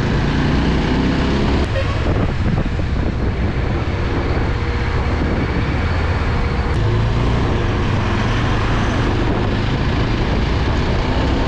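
Yezdi Adventure motorcycle on the move, its engine running steadily under heavy, even road and wind noise.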